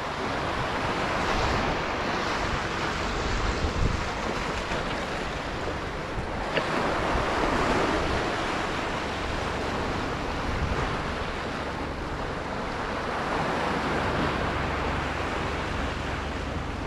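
Sea waves washing and breaking against a rocky shore ledge, the surge swelling and easing every few seconds, with wind buffeting the microphone as a low rumble underneath.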